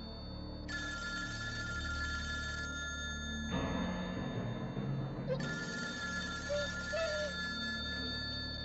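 Bell of a rotary-dial desk telephone ringing: two long rings with a pause of about two seconds between them.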